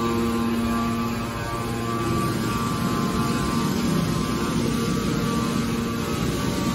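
Hydraulic scrap-metal baler running, its electric motor and hydraulic pump giving a steady drone with a humming whine.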